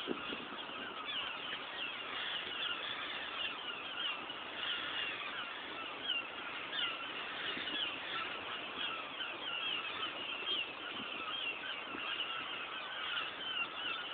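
A flock of birds calling continuously, many short high calls overlapping one another.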